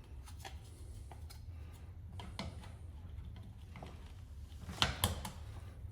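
Scattered light clicks and taps from handling a plastic outlet cover plate and its screws, with a louder couple of clicks near the end, over a faint low hum.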